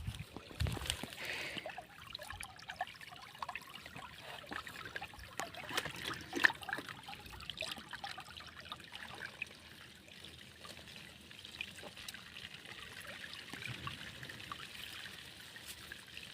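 Water trickling and running steadily, with scattered small splashes and clicks; one sharp click about six and a half seconds in.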